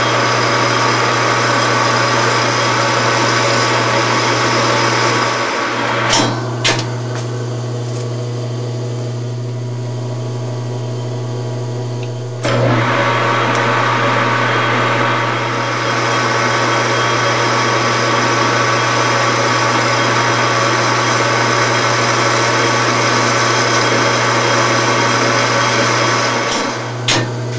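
Metal lathe running with a steady motor hum while turning a billet aluminium part, the cutting noise loud except for a quieter stretch of about six seconds in the middle. A couple of sharp clicks come around six seconds in and again near the end.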